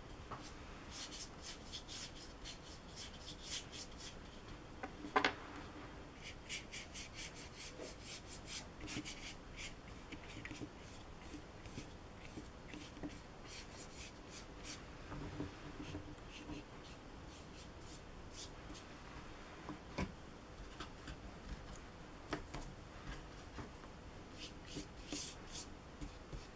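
Flat watercolour brush scrubbing across paper in runs of quick scratchy strokes, several a second. A few sharp knocks between runs, the loudest about five seconds in.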